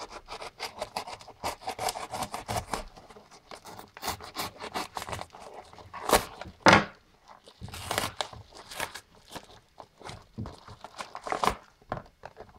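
A blade slitting and tearing open a padded paper mailer: irregular scraping, ripping and crinkling of the paper, with the loudest rips about halfway through. Near the end the packaging rustles as a boxed item is pulled out.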